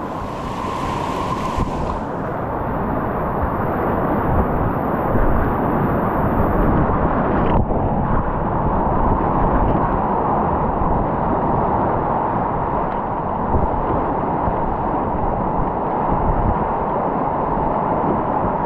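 Steady loud rush of big high-water river rapids around a kayak, with a single sharp tick about seven seconds in.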